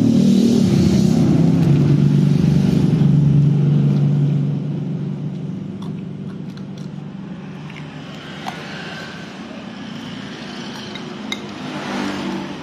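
A motor vehicle engine running close by, loud for the first four seconds or so and then fading away. A few light clinks of a spoon on a plate come later on.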